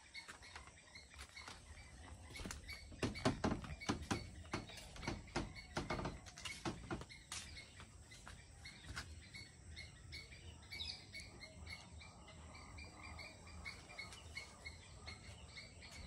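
Morning birdsong: many small birds chirping over a low rumble. A run of sharp knocks and clicks about three to seven seconds in is the loudest thing heard.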